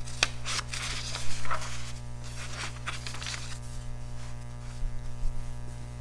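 Sketchbook paper pages being turned and smoothed flat by hand: rustling and brushing of paper, busiest in the first three seconds or so, over a steady low electrical hum.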